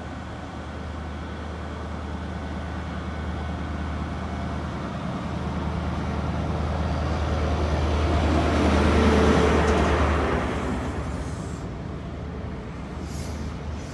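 GWR Class 43 HST power car with its MTU diesel engine running into the platform at low speed, a steady low engine hum growing louder as it draws alongside. The hum drops away about ten seconds in as the power car passes, leaving the Mark 3 coaches rolling by with a few brief high squeals near the end.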